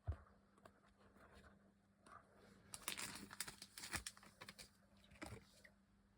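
Faint rustling and small clicks of a trading card being slid into a plastic card sleeve, coming in about three seconds in after a near-silent start.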